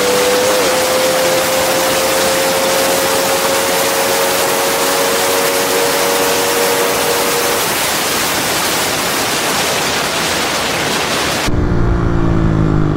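Heavy wind rush on the microphone over a Honda RS150 motorcycle engine held at a steady cruise, its tone rising slowly. About eleven seconds in the sound cuts abruptly to a closer, less windy recording of the engine, lower in pitch.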